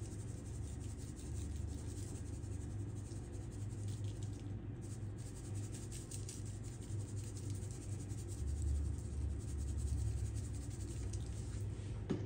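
Faint scratchy patter of seasoning being shaken from a plastic shaker onto raw beef neckbones, over a steady low hum.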